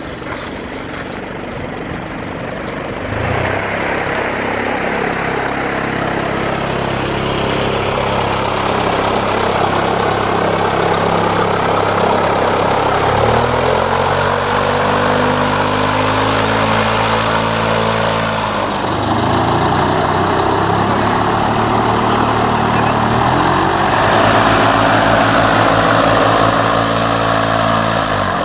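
Paramotor engine spinning its propeller as a film wind machine, revved up about three seconds in, its engine pitch shifting up and down several times, then throttled back at the very end.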